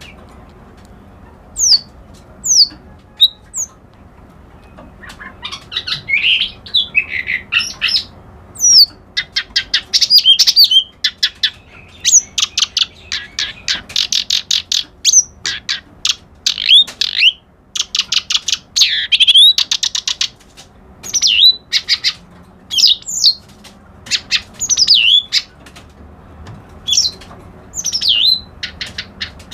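Reed warbler (kerak basi alis putih) singing a long, varied chattering song: fast rattling runs of harsh notes mixed with quick high sweeping whistles, in phrases broken by short pauses.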